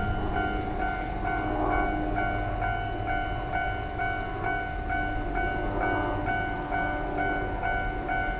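Japanese level-crossing warning alarm sounding its repeating two-tone "kan-kan" about twice a second, over the low rumble of a passing train.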